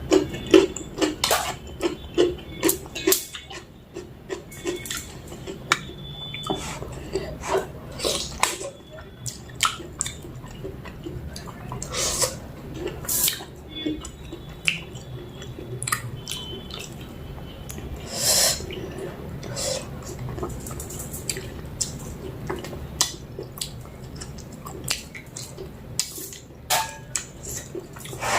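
Close-up eating sounds from a plate of mutton curry and rice: irregular wet smacks and chewing with frequent short clicks, some of them against the plate.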